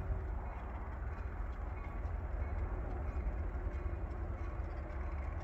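Wind rumbling on the microphone over a steady, distant engine hum.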